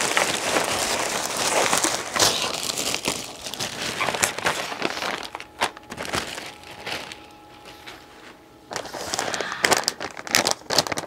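Plastic blind bags crinkling and crackling as they are opened and shuffled by hand, with many sharp crackles. It eases off for a couple of seconds past the middle, then the crinkling picks up again.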